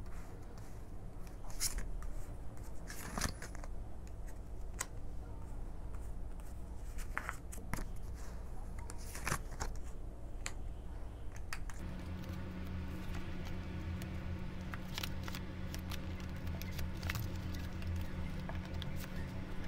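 Tarot cards being dealt and flipped over on a velvet cloth: scattered soft clicks and swishes of card stock. Partway through, a steady low hum starts and continues under the card sounds.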